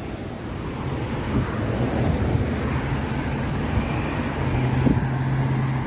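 Busy road traffic: cars moving and idling in congestion, a steady rush of noise with a low engine hum underneath.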